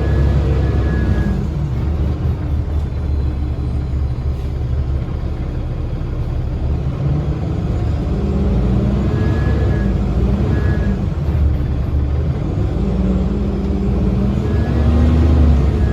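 Cummins ISL diesel engine of a 2010 Gillig BRT transit bus running, heard from inside the bus as a deep steady rumble. A high thin whine comes and goes a few times.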